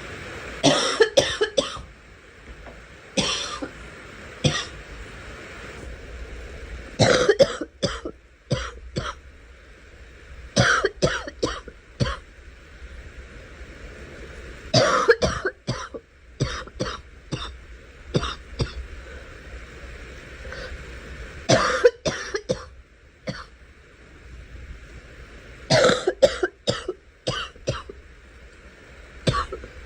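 A girl coughing in repeated fits, each a quick run of several coughs, with pauses of a few seconds between the fits.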